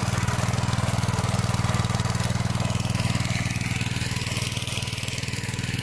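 Honda tiller's small single-cylinder four-stroke petrol engine running at a steady speed, easing off slightly about four seconds in.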